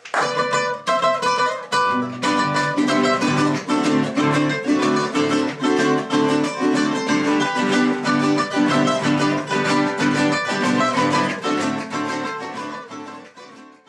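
Acoustic string band of guitars and other plucked strings playing a lively instrumental passage of quick, even plucked notes. It starts abruptly and fades out near the end.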